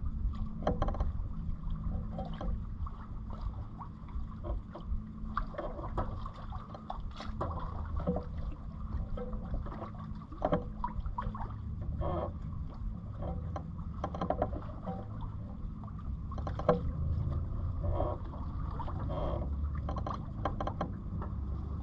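Water gurgling and slapping along a Catalina 27 sailboat's hull under sail in light wind: short irregular splashes over a steady low rumble.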